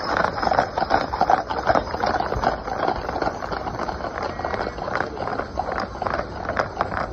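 Hooves of a six-horse draft hitch trotting on wet pavement: a fast, irregular clatter of many hoofbeats. It is loudest early, eases off, then builds again near the end as another hitch approaches.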